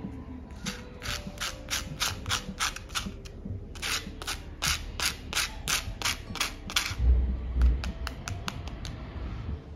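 Crunching of crisp deep-fried potato sticks: a quick, regular run of sharp crackles, about four a second, in two long runs that grow fainter near the end. A low bump sounds about seven seconds in.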